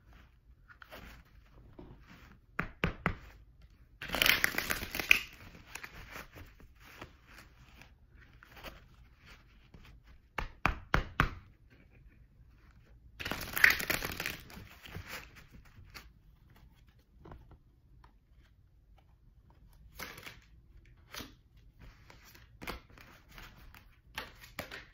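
A Mystical Cats tarot deck being riffle-shuffled by hand: two dense rushes of card clicking, each lasting about a second and a half, about four and thirteen seconds in. Between them come a few sharp taps and knocks as the cards are squared and cut.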